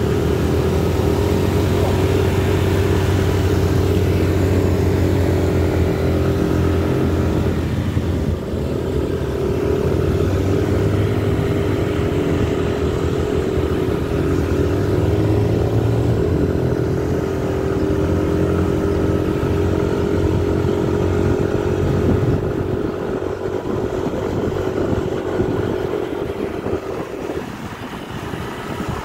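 Motor scooter engine running steadily while riding along, easing off near the end.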